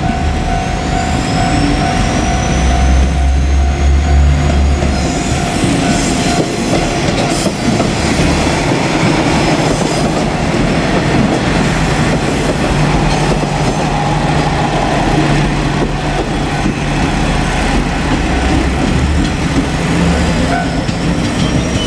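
Two-car KiHa 47 diesel railcar set running past, its diesel engines and steel wheels on the rails making a steady loud rumble and clatter.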